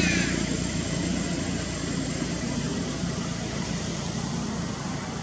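A motor vehicle's engine fading away, leaving a steady low rumble that slowly grows quieter.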